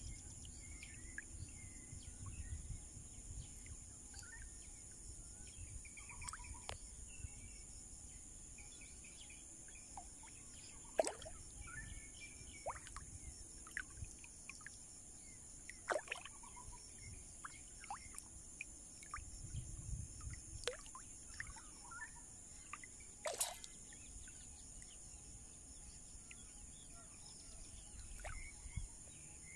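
Faint outdoor ambience: small birds chirping here and there over a steady high hiss and a low rumble, with a few sharp clicks, the loudest about three quarters of the way through.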